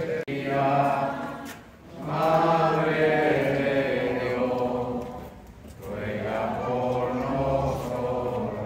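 A group of voices reciting the rosary aloud in unison, in a chant-like drone. It comes in three long phrases separated by brief pauses.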